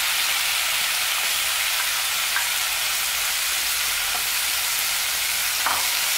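Freshly added chopped tomatoes and onions sizzling steadily in a hot oiled frying pan, with a light clack of a wooden spatula against the pan near the end as stirring begins.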